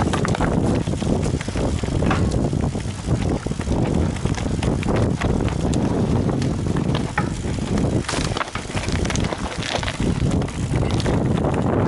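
Mountain bike riding over rough trail ground: wind buffeting the camera microphone as a steady rumble, with the bike rattling and knocking over stones and roots throughout.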